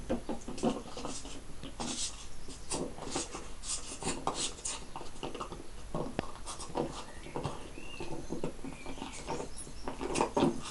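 A Siberian Husky puppy and a Springador playing on a tiled floor: irregular scuffling and clicking of claws on the tiles, with mouthing and snuffling noises around a ball.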